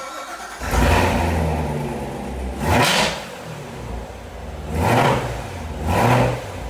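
Car engine idling and revved four times, each rev rising and falling in pitch.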